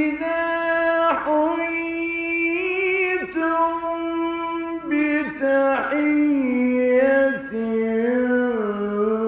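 A male Quran reciter in mujawwad (melodic tajweed) style sings one long melismatic phrase. He holds notes broken by quick ornamental turns, and the pitch steps lower in the second half.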